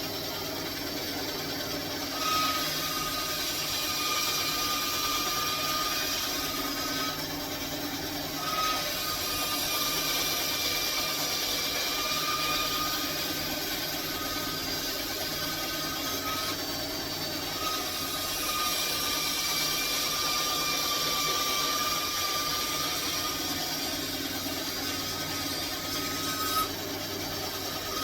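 A handheld power tool working wood, running with a steady whine that comes in three long stretches with short breaks between.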